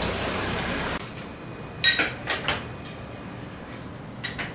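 A brush swishing over raw fish steaks for about a second, then a quick run of sharp clacks and knocks about two seconds in, and two more near the end.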